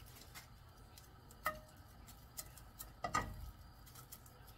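A few light clicks and taps of wooden chopsticks against a frying pan as a stack of laver sheets is lifted and turned while toasting, one tap ringing briefly and a louder knock about three seconds in.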